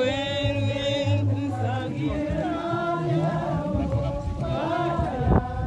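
Several voices singing a slow Christian song in an East African language, with long held notes.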